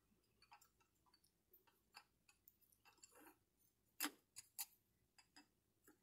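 Faint scattered clicks and light knocks of wooden sticks tapping together and on the tabletop as yarn is tied in a knot around them, the loudest knock about four seconds in.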